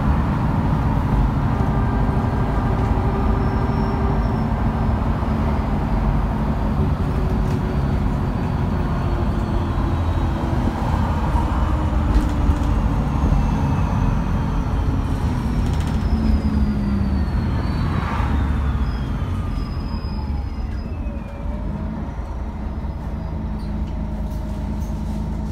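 MAN A23 articulated city bus running, heard from inside the passenger cabin: a steady low diesel and drivetrain drone with road noise. A thin whine falls in pitch past the middle, and the running eases a little quieter near the end.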